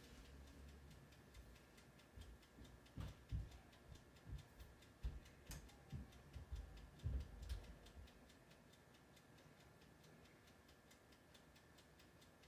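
Near silence with a faint, regular ticking throughout, and a run of soft, low thumps from about two to eight seconds in.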